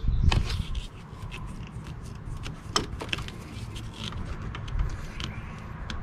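A rubber engine vent hose, its clamp and a pair of pliers being handled: scattered light clicks and rubbing, heaviest in the first second.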